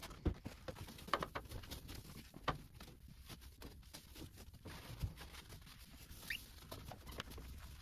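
A glass cabinet-door pane being wiped down after a spray of glass cleaner: scattered light rubbing and knocks, with a short rising squeak about six seconds in.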